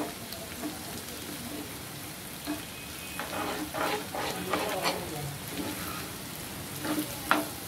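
Beaten egg and snake gourd frying in a pan with a sizzle, while a spatula stirs and scrapes against the pan in several short strokes from about two and a half seconds in and twice more near the end.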